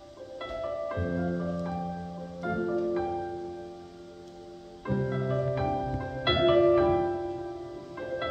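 Stage keyboard playing with a piano sound: slow chords and a high melody, the notes struck and left to ring, in phrases that swell and fade.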